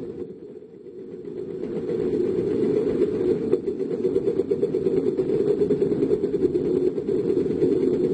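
Heavy diesel engine of construction equipment running with a steady low rumble. It drops off briefly about a second in, then builds back up and holds.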